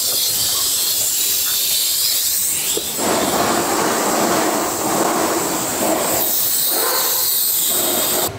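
Used automatic transmission fluid pouring into a canister with a steady hiss; about three seconds in the splashing becomes fuller and louder.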